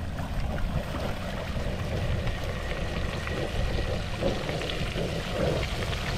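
French fries sizzling and crackling in a pot of hot oil, just after going into the oil, with a steady low rumble underneath.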